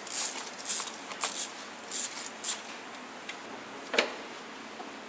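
Gloved hands rubbing and scraping on a truck's plastic engine cover, a run of short scratchy rustles, then one sharp plastic click about four seconds in as the cover comes free of its mounts.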